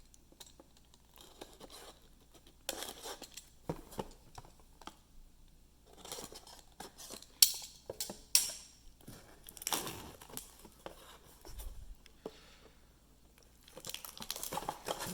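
Packaging being handled and torn open, crinkling and tearing in irregular bursts, with two sharp clicks about seven and eight seconds in.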